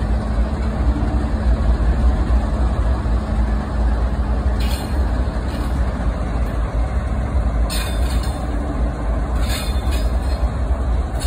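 Diesel locomotives running light past at low speed: a steady low engine rumble with rolling wheel noise, and a few brief high hisses about halfway through and twice more near the end.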